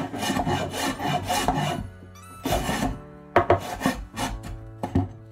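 Hand sanding along the edge of an oak board with a small piece of sandpaper. A quick run of rubbing strokes lasts about two seconds, then after a short pause come several shorter, separate strokes.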